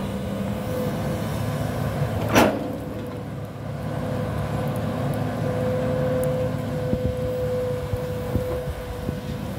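Hitachi 210 hydraulic excavator running under load as its bucket digs into a soil bank, the engine steady with a constant whine over it. A short, sharp noise stands out about two and a half seconds in.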